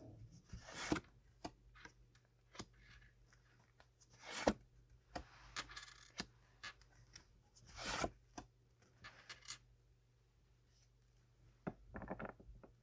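Tarot cards being handled and laid out: quiet rustles, slides and light taps of the cards, with louder swishes about one, four and a half and eight seconds in.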